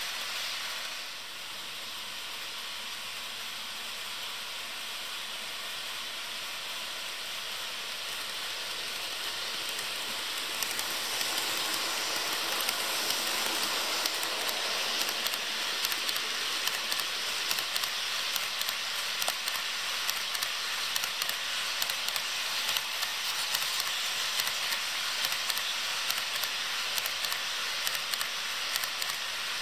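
HO scale model freight train rolling on the track: a steady hiss of small metal wheels on rail. About ten seconds in it grows louder as a block of reefer cars passes close, with a quick run of clicks from the wheels crossing rail joints.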